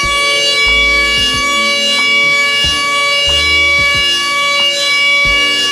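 A DATRON high-speed CNC milling spindle whines steadily at a high pitch as it cuts a metal workpiece. Electronic background music with a bass line and drum beat plays under it.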